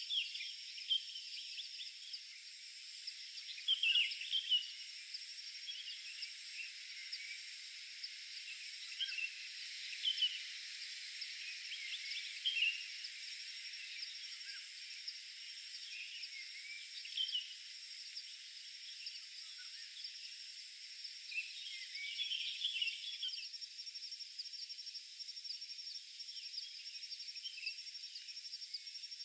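Outdoor ambience: birds give short, scattered chirps over a steady, high-pitched insect drone.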